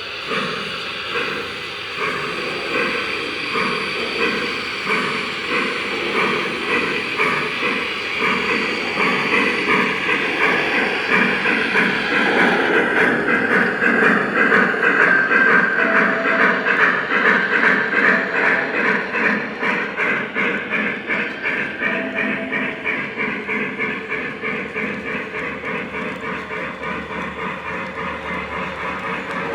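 Lionel Legacy Pennsylvania S1 duplex O gauge steam locomotive running past with its sound system chuffing in a steady rhythm, with wheels and cars clicking along the track. It gets louder up to about halfway, then slowly fades.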